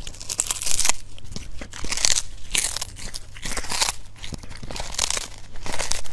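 A kitten chewing a small whole fish held in its paws: wet, crunching bites about twice a second.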